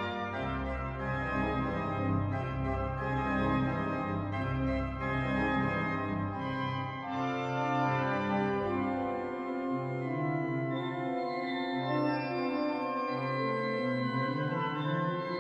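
Organ music arranged for organ duo: sustained chords over a bass line. It has very deep held bass notes for the first half, then the bass moves in shorter, stepping notes.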